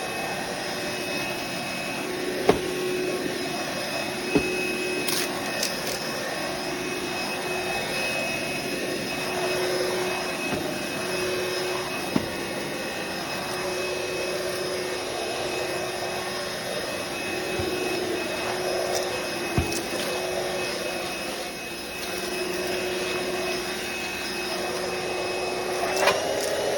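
Roomie Tec SlimVac cordless stick vacuum running steadily while it picks up debris from a hard floor. A few sharp clicks come as bits are sucked into the nozzle. Its pitch rises slightly near the end.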